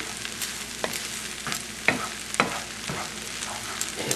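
Buckwheat kasha frying in a skillet with a steady sizzle while a wooden spatula stirs it, giving irregular scrapes and taps against the pan about twice a second.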